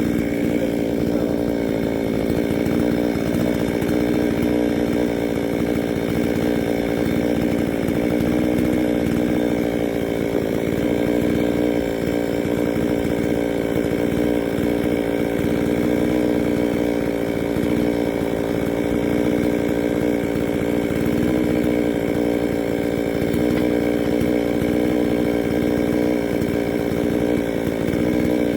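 Chainsaw running at high revs in a vertical chainsaw mill, ripping lengthwise through a log with a steady engine note that dips slightly now and then under the load of the cut.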